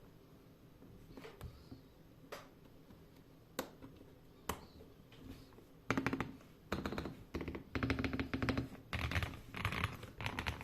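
Keystrokes on a GMK67 mechanical keyboard with lubed KTT Kang White linear switches: a few single key presses at first, then from about halfway on bursts of fast, continuous typing.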